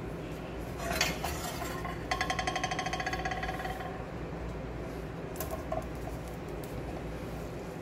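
A glass baking dish clinking against the metal grate of a gas hob: one sharp clink about a second in, then a fast ringing rattle for about two seconds. Lighter clicks follow as zucchini slices are laid into the dish.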